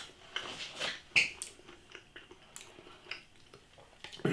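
Close-up eating noises: chewing, with a few light clicks of a metal fork against the plastic meal tray, the loudest a sharp clink about a second in.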